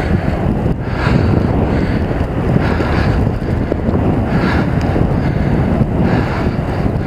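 Wind buffeting a helmet-mounted camera's microphone while riding a mountain bike: a loud, steady low rumble, with a higher hiss that swells every second or two.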